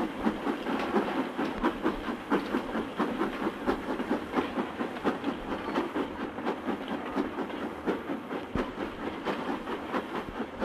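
Steam-hauled train on the move: a quick, steady run of beats, about four a second, over a continuous rushing noise.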